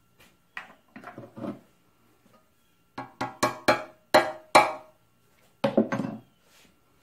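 Light hammer taps on metal at a cast-iron engine block, each with a short metallic ring, in three groups: a few soft ones early, a run of six harder ones in the middle, and two or three more near the end.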